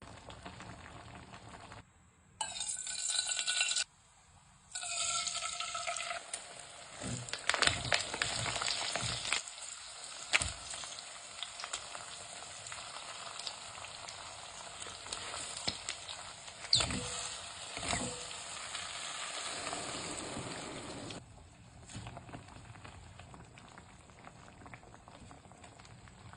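Ramen cooking in a series of short cuts: food sizzling in a hot pan, with sharp clicks of utensils against the pan or pot along the way. The sound drops abruptly at each cut and is quieter for the last few seconds.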